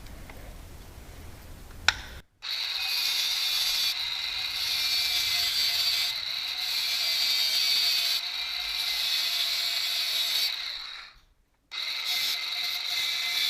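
A sharp click about two seconds in, then a small power tool running steadily on metal in several stretches, taking a little off the edge the lock bolt is catching on to give it clearance. It cuts out briefly near the end and starts again.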